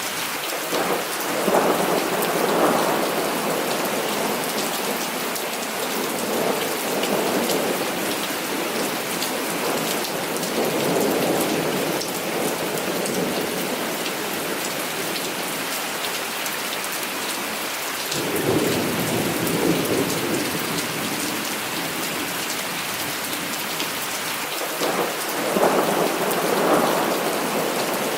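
Heavy rain falling steadily with an even hiss, and five rolls of thunder that each swell and fade over a couple of seconds, spread through the stretch.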